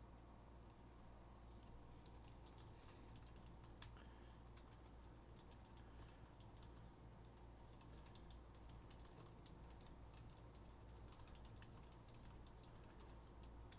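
Faint typing on a computer keyboard: scattered soft key clicks at an irregular pace, one a little louder about four seconds in, over a low steady hum.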